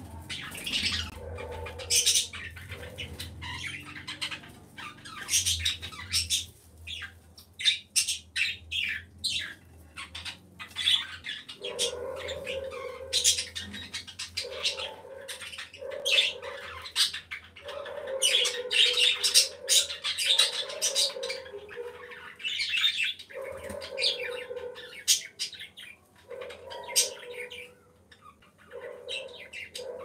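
Domestic pigeons cooing in short low phrases, repeated every second or two from about a third of the way in, over frequent sharp high chirps of other birds.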